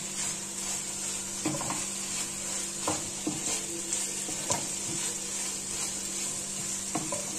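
Okra and onions sizzling in oil in a black nonstick kadai while a wooden spatula stirs them, knocking and scraping against the pan a few times.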